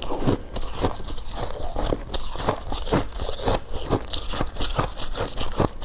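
Ice being bitten and chewed close to the microphone: a steady run of irregular crunches and crackles.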